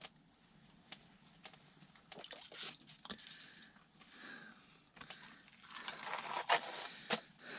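Faint scattered clicks, taps and rustling from hands handling a freshly caught burbot and fishing line on the ice. The sounds grow busier near the end.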